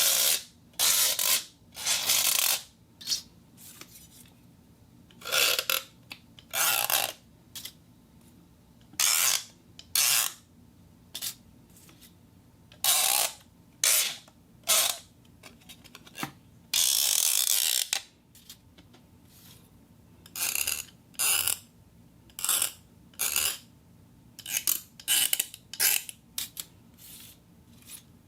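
Small gear train and springs worked by hand in repeated short goes, giving ratcheting, rasping mechanical bursts with short pauses between them. One burst about two-thirds of the way through lasts about a second.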